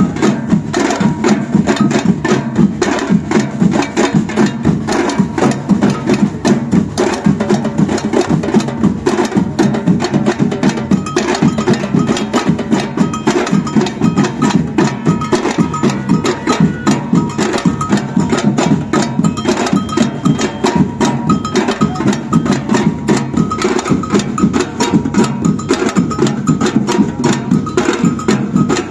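Batucada drum group playing a steady, driving samba rhythm on deep drums and snares, with a bell pattern ringing over the top from about a third of the way in.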